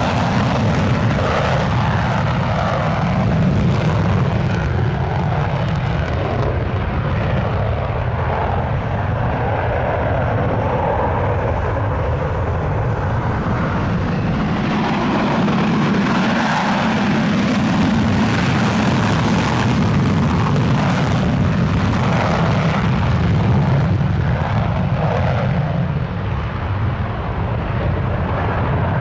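Finnish Air Force F/A-18 Hornet fighters taking off, their twin General Electric F404 jet engines running in afterburner. The result is a loud, steady jet noise with a rough crackle as the jets accelerate down the runway and climb away.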